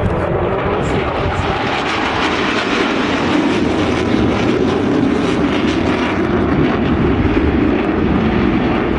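Loud, steady jet noise from a Saab JAS 39 Gripen's single Volvo RM12 afterburning turbofan as the fighter flies its display, swelling a little in the second half.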